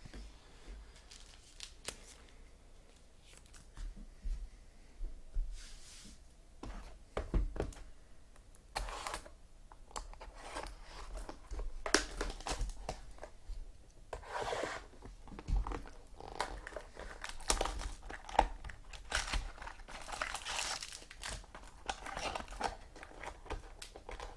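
Trading card pack wrappers being torn open and crinkled, with cards and wrappers handled in irregular rustling bursts.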